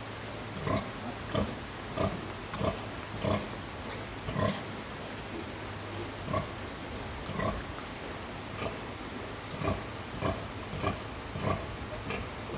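A sow's rhythmic nursing grunts as her piglets suckle: short, low grunts repeating about one to two a second, with a brief pause about halfway through. A steady low hum runs underneath.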